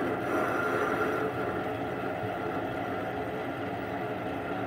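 Small benchtop metal lathe running with a steady motor and gear hum, a left-hand cutting tool being fed slowly by hand to face the workpiece square.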